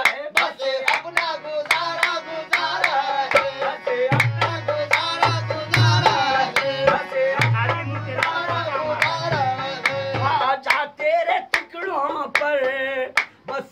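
Qawwali ensemble: harmonium melody, singing voices, steady hand claps and dholak drumming. The dholak's deep bass strokes come in about four seconds in.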